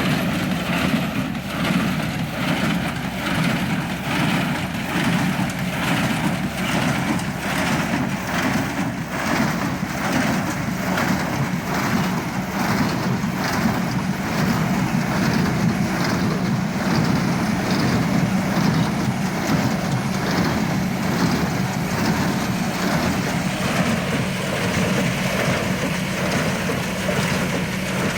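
Tractor engine running steadily under load, with a New Holland 66 square baler working behind it; a faint regular beat runs through the steady running.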